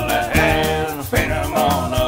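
Background music: an upbeat song with a steady beat.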